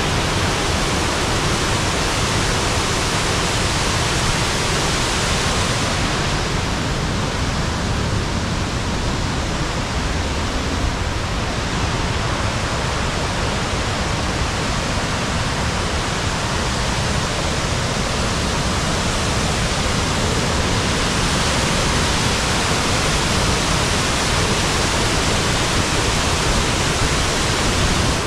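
Waterfall: a loud, steady rush of falling water with no break.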